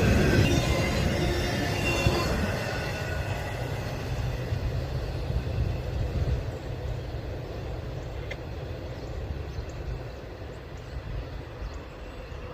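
CSX intermodal container train rolling past: a steady rumble of wheels and cars that slowly fades as the train moves away. A higher, steady whining tone over the rumble stops about two seconds in.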